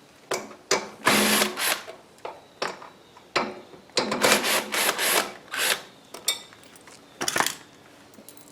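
A power drill fitted with a socket runs in short bursts, spinning out the 10 mm bolts that hold the snowblower's gas tank and shrouds.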